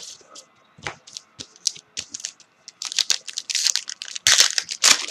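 Trading-card packaging being handled and torn open: scattered sharp clicks and crackles, then a dense stretch of crinkling and tearing from about three seconds in, loudest near the end.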